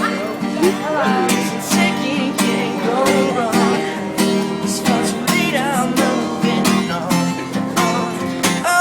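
Live pop song performance: acoustic guitar strumming steadily under a wavering sung melody line.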